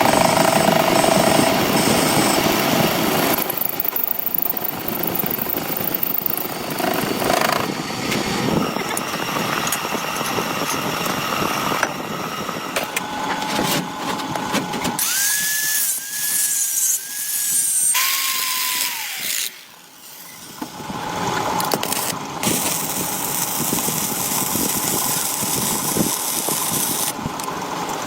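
Power tools running in a metalworking workshop, machining steel. About fifteen seconds in, the noise drops away for a few seconds, leaving a high whine that glides down, before the machine sound returns.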